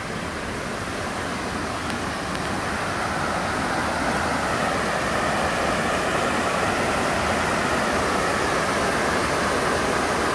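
Water pouring steadily over a small waterfall into a pool: an even rushing that grows a little louder over the first few seconds, then holds steady.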